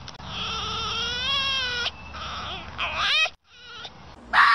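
Zebra calling: one long, wavering high call of about two seconds, then shorter calls, one rising sharply in pitch about three seconds in.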